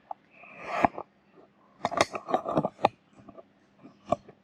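Small cardboard retail box being handled: a run of short rustles and sharp clicks, busiest from about two to three seconds in, with a single click near the end.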